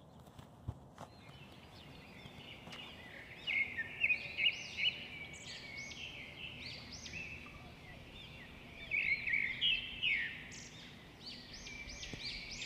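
A flock of small birds chirping: many short, sharp chirps overlapping, busiest about three to five seconds in and again around nine to ten seconds.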